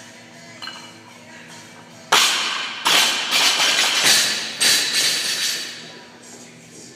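Two loaded barbells with bumper plates are dropped onto the gym floor. They land with a sudden loud impact about two seconds in, then bounce and clatter with several more impacts that die away over the next few seconds. Background music plays underneath.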